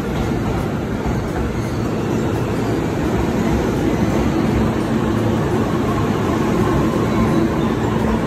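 Electric commuter train in JR East's green-and-orange Shonan livery alongside the platform: a steady rumble and hum with a faint high whine.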